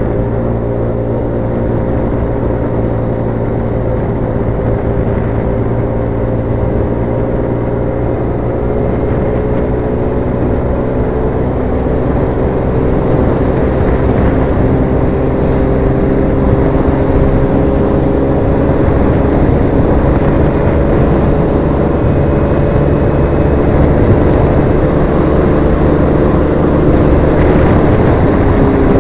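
Motor scooter's engine running hard at speed, its note rising slowly as the scooter gathers speed and dropping slightly near the end, with wind rumbling on the microphone.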